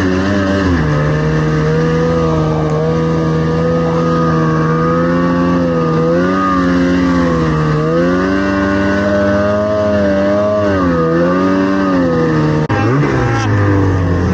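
Snowmobile engine running hard under way, its pitch holding high and rising and falling with the throttle, with a brief let-off and climb back up near the end.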